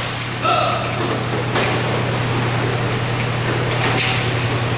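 Indoor roller hockey rink during play: a steady low hum under a wash of hall noise, with sharp knocks about two seconds apart from sticks, puck or boards. A brief higher tone sounds about half a second in.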